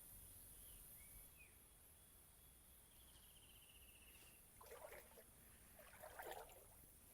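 Faint outdoor ambience: a steady, high-pitched insect buzz, a few soft chirps and a short rapid trill, then two brief rustles about five and six seconds in.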